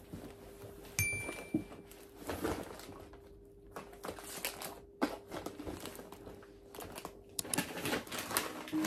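Rustling and crinkling of a shopping bag and packaged purchases being handled, with scattered light knocks and clicks, over a faint steady hum. A brief high beep sounds about a second in.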